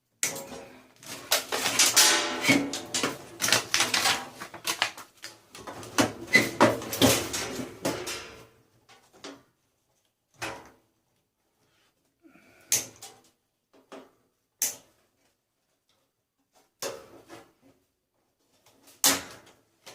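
Busy clattering and clicking of small metal and plastic parts from a clothes dryer being pulled apart by hand and snipped with cutters. It thins out after about eight seconds to a few separate clicks and knocks.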